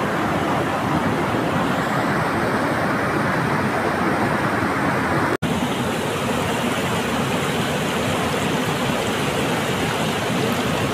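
Fast mountain river rushing over boulders in white-water rapids, a steady loud rush of water. It breaks off for an instant about five seconds in, then carries on.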